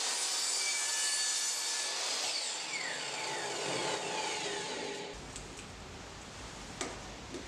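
Kobalt miter saw running through a crosscut in a wooden board. About two seconds in the motor is switched off and its whine falls away as the blade spins down. A couple of light clicks come near the end.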